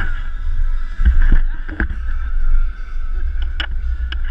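Wind buffeting the microphone of a pole-mounted action camera during a rope swing: a steady low rumble with a thin high hum underneath and scattered clicks and knocks.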